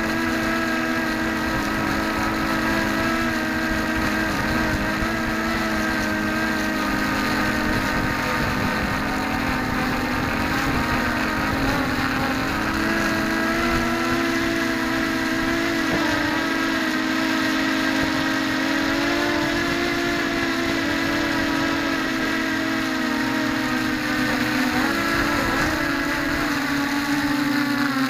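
A mini quadcopter's brushless motors and propellers whining, the pitch drifting up and down as the motor speed changes, with rumble from strong wind low down.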